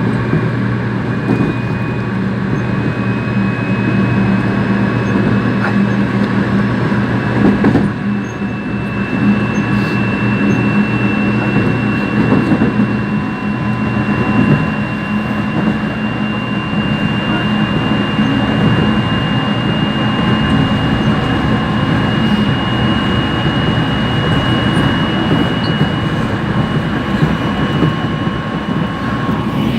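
Korail Line 4 electric multiple unit running between stations: a steady rolling rumble with a thin motor whine that rises slowly in pitch as the train gathers speed.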